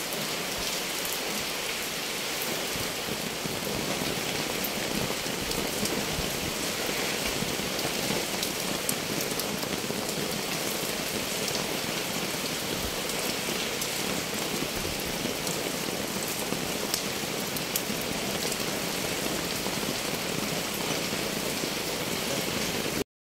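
Steady rain falling, with many individual drops striking close by.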